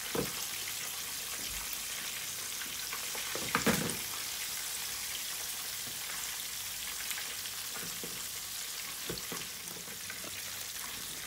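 Breaded chicken pieces deep-frying in hot oil in a wok: a steady sizzle. A couple of brief knocks, near the start and about three and a half seconds in, as metal tongs turn and lift the pieces.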